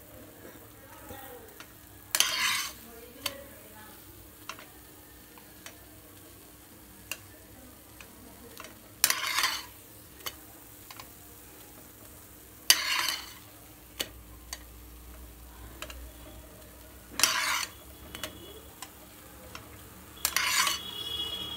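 A bread slice frying in shallow oil in a pan, with five short bursts of sizzling as a steel spatula flips it back into the hot oil, and light taps of the spatula on the pan between them.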